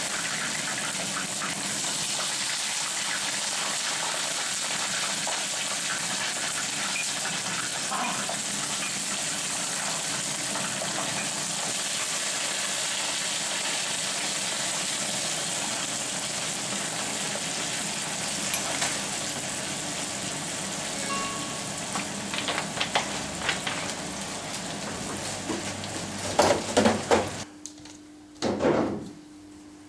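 Pieces of food frying in hot oil in a frying pan, a steady loud sizzle. Near the end the sizzle cuts off suddenly, leaving a low hum and a few knocks.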